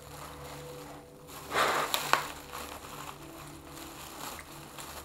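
A plastic carrier bag rustling and crinkling as it is handled, with one short loud burst about a second and a half in that ends in a sharp crackle.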